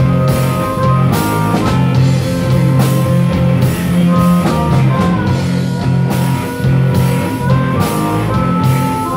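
A live blues-rock band playing: a harmonica wails long held, bending notes through the vocal microphone over electric guitar and a drum kit.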